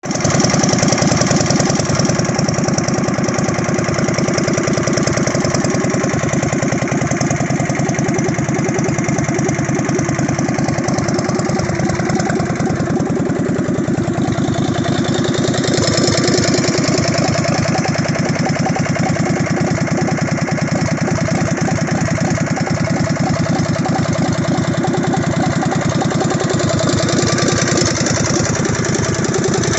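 The air-cooled V-twin engine of a modified Craftsman riding mower running steadily with an even, rapid firing beat, on one of its first runs after the rebuild.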